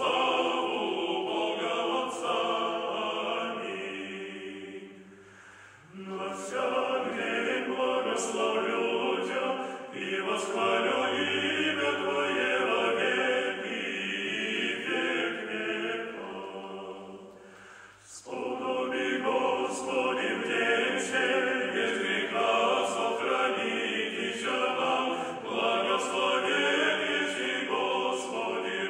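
A choir singing an Orthodox church hymn without accompaniment, in phrases broken by two short pauses, about five and about seventeen seconds in.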